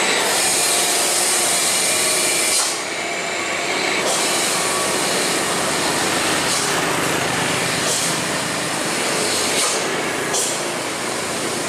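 Road traffic: a tanker truck's diesel engine and tyres running as it drives downhill past, with cars and a motorcycle passing close by.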